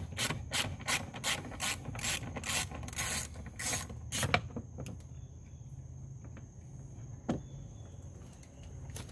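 Ratchet wrench with an 8 mm socket clicking as it backs out a bolt: a quick, even run of about four or five clicks a second that stops about four and a half seconds in. A single knock follows near the end.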